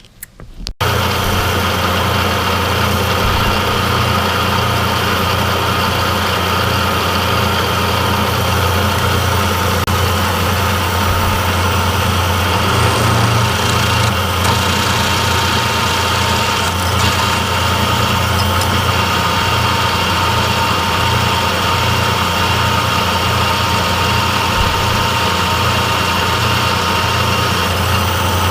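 A machine tool running steadily at constant speed, giving a low hum with a steady gear whine over it. It cuts in abruptly about a second in.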